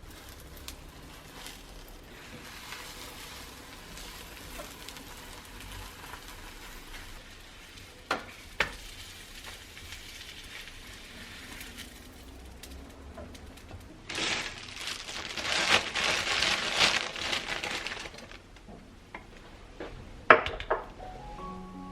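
Food sizzling in a hot frying pan, with a louder burst of sizzling for a few seconds past the middle, and a few sharp clicks of a utensil against the pan.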